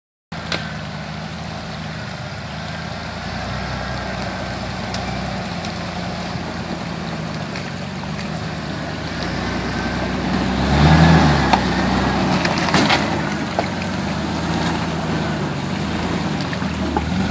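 Jeep engine running at low speed as the vehicle crawls over creek-bed rocks, with a brief rev about two-thirds of the way through and a few sharp knocks from the tyres and chassis meeting rock.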